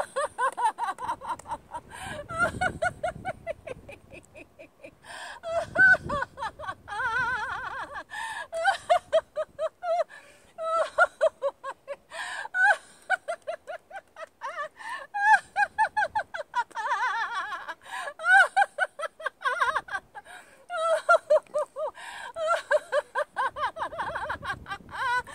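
A woman's deliberate laughter-yoga laughter: long runs of rapid ha-ha pulses with gasping breaths between the runs.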